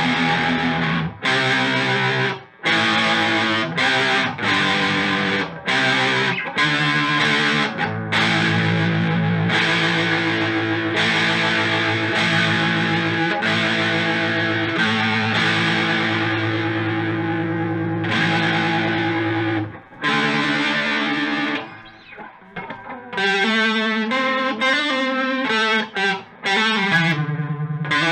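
Distorted electric guitar played through a Moen Jimi Nova univibe-style chorus/vibrato pedal: chords struck and stopped short, one held for several seconds, then near the end a passage of notes with a wavering, warbling pitch.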